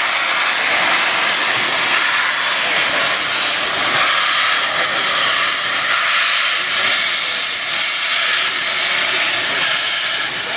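NSW AD60 class Beyer-Garratt steam locomotive 6029 pulling away with its train, its open cylinder drain cocks giving a loud, steady hiss of steam.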